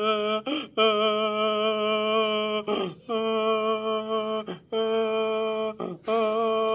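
A man wailing in long notes held at one steady pitch, broken every second or two by short sobs that fall in pitch: exaggerated mock crying.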